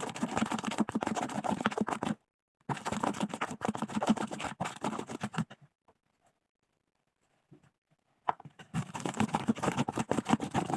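Fluffy crunchy slime with small beads in it being mixed as the contact lens solution and baking soda activator is worked in, a dense run of wet crackling clicks. It stops about 2 s in, resumes, stops again after about 5.5 s, and after a silent gap comes back about 8.5 s in.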